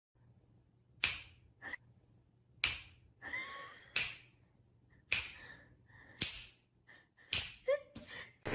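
A person's fingers snapping, about eight sharp snaps spaced irregularly about a second apart, in a small room. A few faint short squeaks fall between the snaps.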